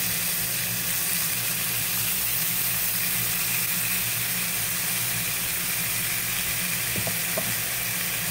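Strips of raw steak sizzling in a hot skillet as more pieces are laid in: a steady frying hiss, with two faint clicks about seven seconds in.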